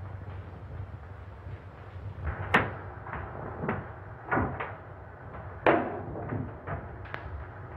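A series of irregular knocks and thumps, the loudest about two and a half seconds in and again near six seconds, over a steady low hum.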